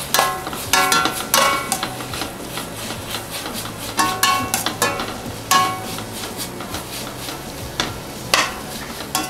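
Slotted metal spatula stirring and scraping vegetables around a stainless steel kadai, with irregular strokes, several of them clinking against the pan and ringing briefly. A faint sizzle of vegetables sautéing on low heat lies beneath.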